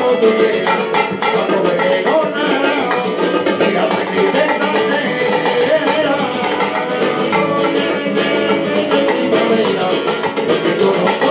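Live rumba flamenca played on two Spanish guitars with a fast strummed rumba rhythm, with bongos.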